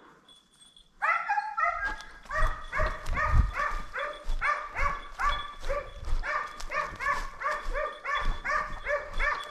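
Kopay hound baying in quick, repeated barks, about three a second, starting suddenly about a second in. This is a hunting dog giving voice on a hare's trail during the chase. Low thuds sound underneath the barking.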